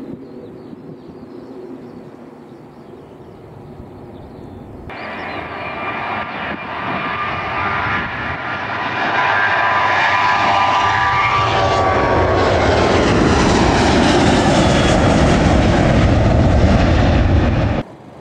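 Jet airliner engines: first a faint rumble from a Boeing 757 climbing away, then a much closer airliner on the runway whose engine noise builds over a few seconds to a loud, steady run at high power with whining fan tones, as on a takeoff run. It cuts off suddenly near the end.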